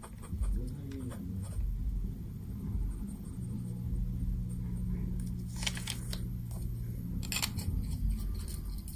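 Medium-nib Platinum 3776 fountain pen scratching lightly across paper as a writing sample is written. Near the end come two short rustles of the paper sheet being handled, over a low hum.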